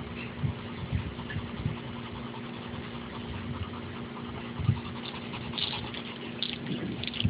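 Steady mechanical hum of a motor or engine running, with irregular low thumps and a few brief crackles near the end.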